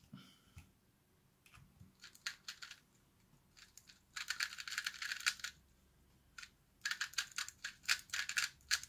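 A 2x2 speedcube being turned fast by hand in a timed solve, its plastic layers clicking and clattering. A few scattered turns come first, then a dense flurry of rapid clicks about four seconds in and another near the end.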